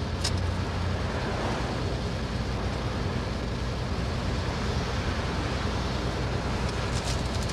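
Lorry engine and road noise heard from inside the cab while driving: a steady low hum under an even rushing noise.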